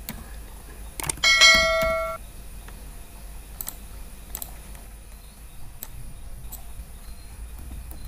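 A single bright electronic ding about a second in, ringing out for about a second, over faint scattered mouse clicks and a low steady hum.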